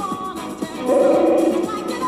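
Music; a long held note with a wavering pitch comes in about a second in.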